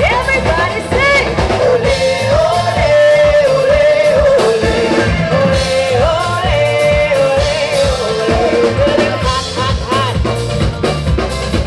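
Live band music: a singer's melody over a steady drum-kit beat with guitar and keyboard.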